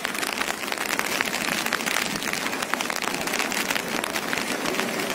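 Rain falling steadily, a dense patter of drops.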